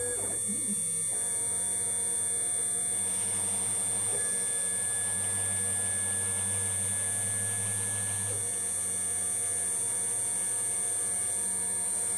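2.2 kW water-cooled CNC spindle running with a steady high whine over a lower hum while a 0.8 mm end mill engraves copper-clad PCB board in a light cut, which is pretty quiet for a CNC router. The lower hum eases off about eight seconds in.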